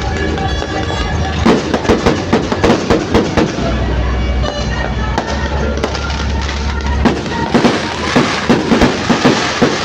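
Fireworks going off in quick runs of sharp bangs and crackles, thickest in two spells near the start and near the end, over loud music with a heavy bass line.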